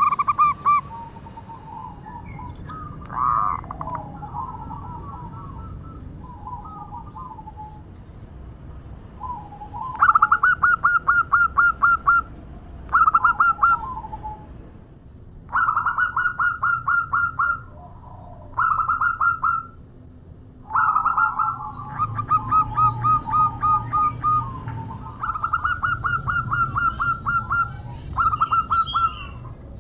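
Female zebra dove calling to a male: rapid staccato cooing in repeated bursts of quick notes. The calls are faint and scattered at first, then come loud and close together from about ten seconds in.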